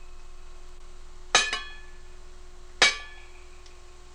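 Ringing clinks of a hard object being struck by hand to make a film sound effect: two quick strikes about a second and a half in, then a single strike near three seconds. Each rings out briefly.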